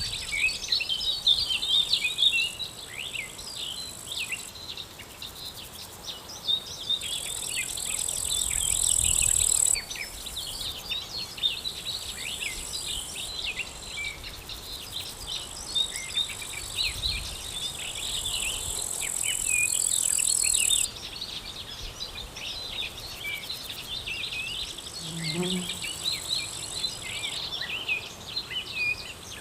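Outdoor nature ambience: small birds chirping and singing throughout, over a high, steady insect trill that comes and goes in long stretches and is loudest about a quarter of the way in and again before the middle.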